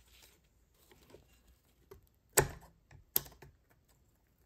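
Sharp metal clicks from a circlip being fitted into the groove of a turbocharger housing with circlip pliers. Two clicks stand out, one about halfway through and another under a second later, among fainter ticks and taps.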